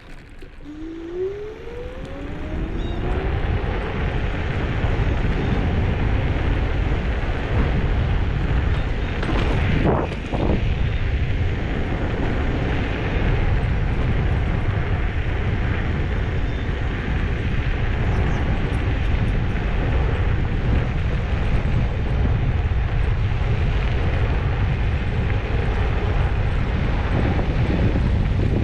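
Kaabo Skywalker 10S+ electric scooter ridden at speed: wind rushes over the microphone throughout. In the first few seconds the hub motor's whine rises in pitch as the scooter speeds up.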